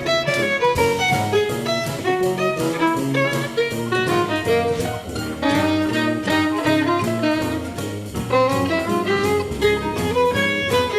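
Instrumental background music: a quick, busy melody of short notes over a bass line in a steady rhythm.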